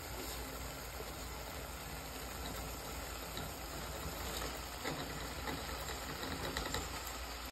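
Pot of browned beef and sauce sizzling and hissing on the stove as rice is tipped in from a strainer, with scattered light ticks.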